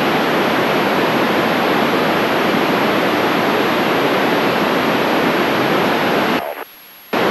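FM receiver hiss from a handheld transceiver tuned to the ISS voice repeater downlink, with no station talking. The hiss is loud and steady, cuts off abruptly for about half a second near the end, then snaps back.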